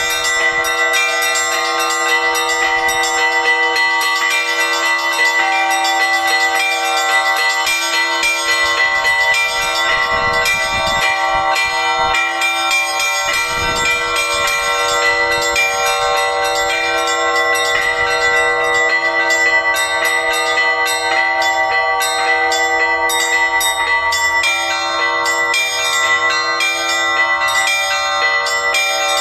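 Orthodox church bells rung by hand by one bell ringer, several bells at once. Small high bells are struck rapidly and without a break over the lasting ring of deeper bells.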